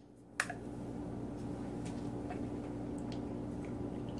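Aluminium beer can being opened: a sharp click about half a second in, then a steady low hum with a few faint ticks.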